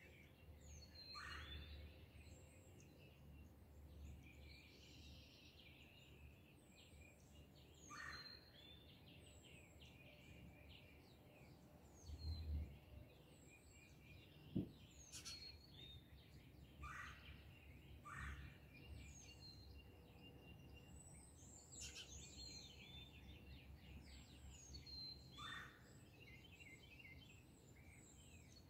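Faint birdsong of several birds chirping and calling, with a falling whistled call repeated every few seconds, over a low steady rumble. One sharp knock sounds about halfway through.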